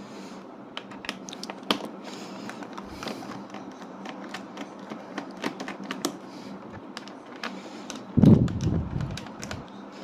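Irregular light clicks and ticks of a screwdriver taking the Phillips screws out of a Lenovo IdeaPad 3 laptop's bottom cover. A louder dull thud comes a little after eight seconds and lasts about a second.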